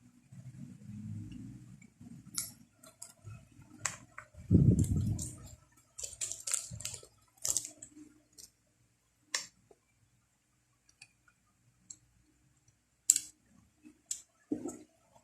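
Scattered clicks and clacks of small plastic and metal parts of a WE Glock 17 Gen5 MOS gas blowback airsoft pistol being handled during disassembly, with duller handling noises, the loudest about four and a half seconds in.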